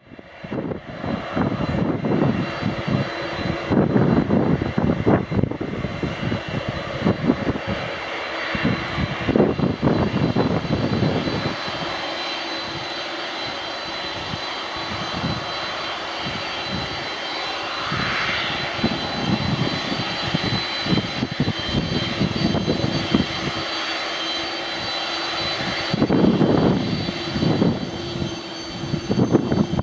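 Boeing 747-400 jumbo jet's engines whining steadily at low taxi power as it rolls along the taxiway, with low rumbling gusts coming and going.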